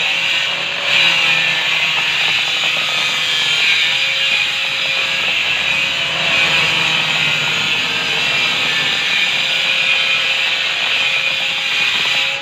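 Angle grinder with a diamond disc cutting dry into a granite countertop slab: a steady, high, gritty hiss over the motor's whine, with a brief dip about a second in.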